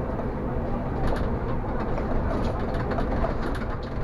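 City replacement bus driving along a street, heard from the driver's cab: steady low engine and road rumble with scattered light clicks and rattles.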